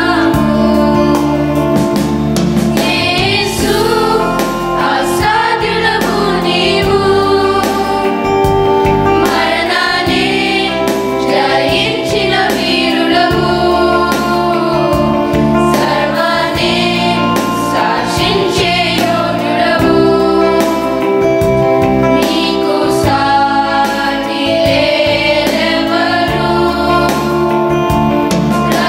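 A children's choir singing a Christian song together, with sustained low accompaniment beneath the voices.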